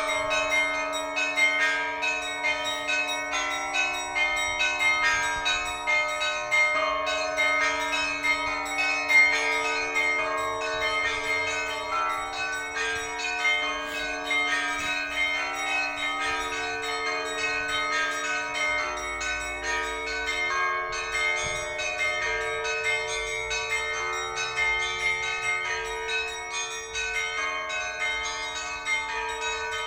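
Russian Orthodox church bells ringing a full peal (kolokolny zvon): small bells struck quickly in a busy, continuous pattern over the lasting hum of the larger bells.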